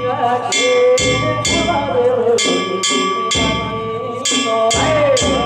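Danjiri float festival music: kane gongs struck about twice a second with a ringing metallic tone, a taiko drum beating every second or two, and voices calling over it.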